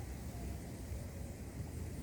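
Steady low rumble with an even hiss over it.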